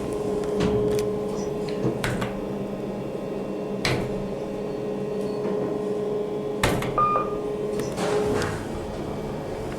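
Kone MonoSpace lift running: a steady hum with a held tone that stops about eight and a half seconds in, with a few sharp clicks and one short high beep about seven seconds in.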